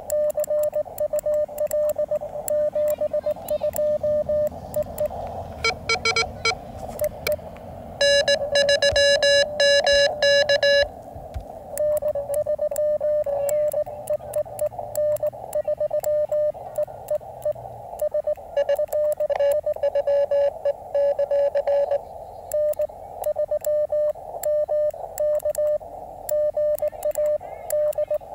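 Morse code (CW) from a ham radio transceiver: a single mid-pitched tone keyed in dots and dashes over faint band hiss, as a contact is exchanged. From about 8 to 11 seconds the keying is louder and harsher.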